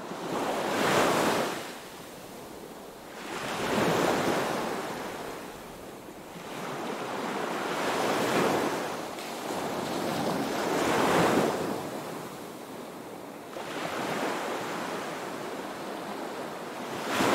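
Ocean waves washing in, swelling and falling away about every three seconds.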